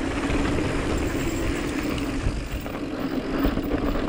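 Mountain bike rolling fast down a dirt trail: a steady droning hum over a dense low rumble of tyre and wind noise, with a few light knocks.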